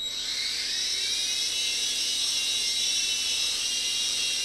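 A JH Transforming Chopper (J288) three-channel coaxial micro RC helicopter's electric motors and rotors spinning up with a sudden start and a whine that rises in pitch over the first second, then holds steady at full speed, with its tail rotor snapped into its alternate position.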